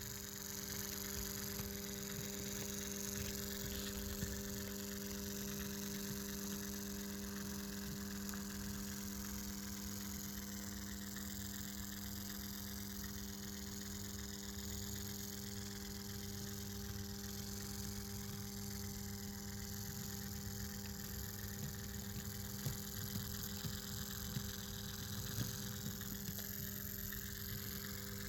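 Fleischmann BR 51 model steam locomotive's tender-mounted electric motor running at low speed with a steady hum and an occasional light click. This hum is the noise problem the owner wants fixed; a fellow modeller guesses the motor's driveshaft needs sewing-machine oil.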